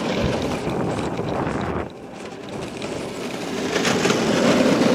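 Battery-powered go-kart running, an even rushing noise. It drops off sharply about two seconds in, then builds up again.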